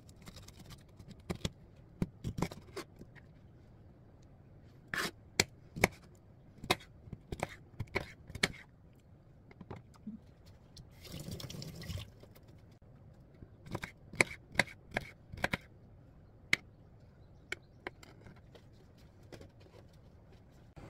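Knife cutting pineapple on a plastic cutting board: clusters of sharp knocks as the blade meets the board, with a short scraping rustle about halfway through.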